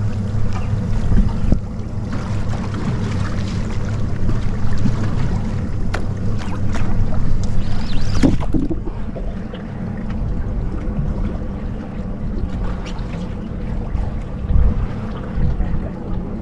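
Wind on the microphone over the steady low rumble of a boat at sea, with scattered sharp clicks and knocks, the loudest about eight seconds in.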